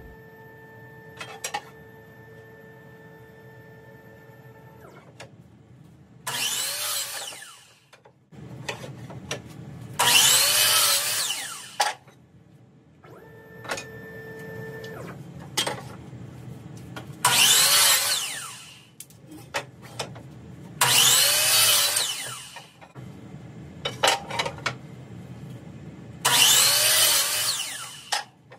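DeWalt sliding compound miter saw making five cuts through face-frame stock, each a loud burst of motor and blade lasting a second or two. Before the first cut, and again midway, a steady whine of the CNC stop block's stepper motors is heard as the block moves to the next length.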